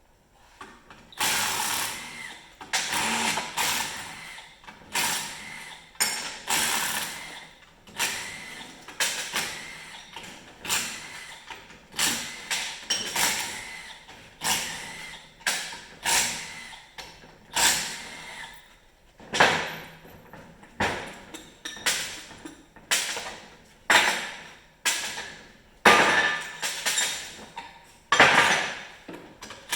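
A power tool running in short bursts, about one a second, spinning out bolts one after another while an engine is stripped down.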